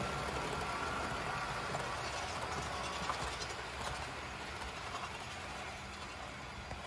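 HO-scale model trains running on a layout: a steady rolling rumble of wheels on the rails and small motors, with a few light clicks as cars pass over the track.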